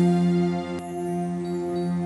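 Music: a steady held drone chord between vocal phrases, with no singing.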